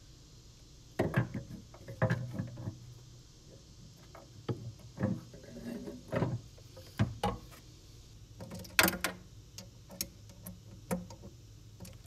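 Irregular knocks, clicks and taps as a mobile ham radio body is handled and fitted onto its mounting bracket under a car seat, over a faint steady low hum.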